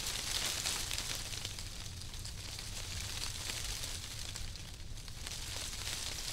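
Food sizzling and crackling over a grill: a steady hiss thick with fine pops, loudest in the first second, over a low steady rumble.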